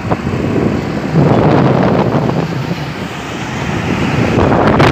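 Road and wind noise heard from inside a moving vehicle on a highway: a steady rumble with wind on the microphone, growing louder about a second in and swelling again near the end.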